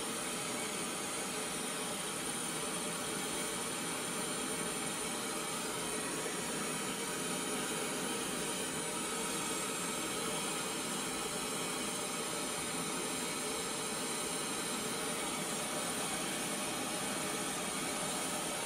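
Visaton BG 20 full-range speaker with tweeter dome playing a steady test noise for a frequency-response measurement: an even hiss with little deep bass.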